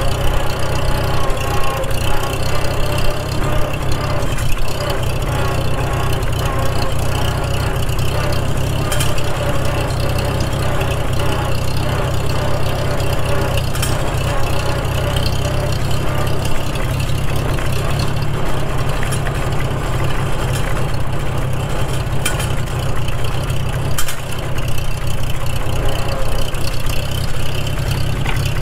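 1942 Farmall H's four-cylinder engine running steadily as the tractor drives in third gear, with a whine from the rear-end gears. The rebuilt gear sets have not yet worn in.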